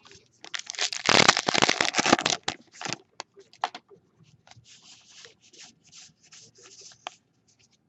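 Baseball trading cards being handled. A loud rustling scrape runs from about half a second in for about two seconds, then lighter rustles and clicks follow as cards are slid and flipped.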